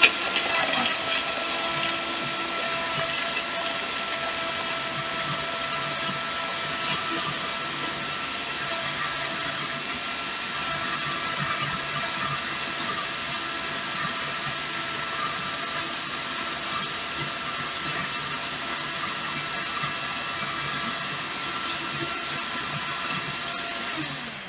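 Vitamix blender motor running steadily at its top speed, blending a liquefied ice-and-fruit smoothie: a loud, even whine with a hiss. It winds down and stops near the end.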